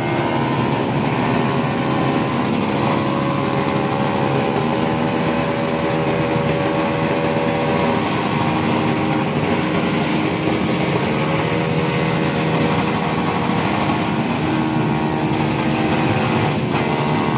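Motorcycle engines running at once, a steady engine drone whose pitch steps up and down every few seconds as the throttles are worked.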